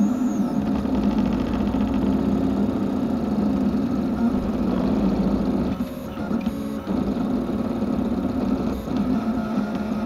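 An FDM 3D printer printing, its stepper motors whirring in shifting tones as the print head traces the part, with a short drop in level about six seconds in.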